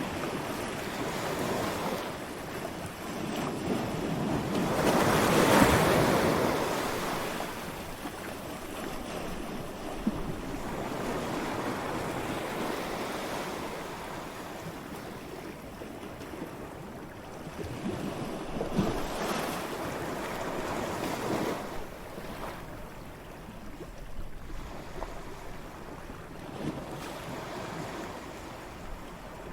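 Ocean waves breaking on a shore: a continuous wash of surf, with one big wave crashing about five seconds in and smaller waves surging later. Wind on the microphone runs under it.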